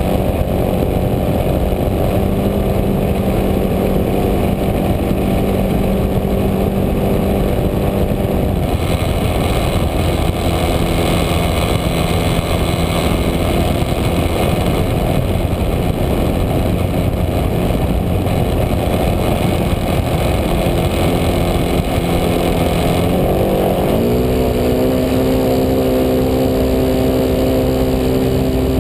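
The engine of a Spacewalker radio-controlled model plane running in flight, heard close up from a camera mounted on the plane. Its note drops about nine seconds in, while a rushing noise grows louder, and climbs sharply again about five seconds before the end as the throttle changes.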